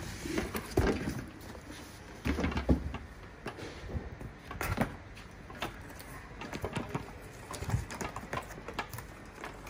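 Cardboard boxes being handled: a printed inner box slid out of its outer corrugated shipping carton, set down and its top flaps pulled open, with irregular scraping of cardboard on cardboard and several dull thumps.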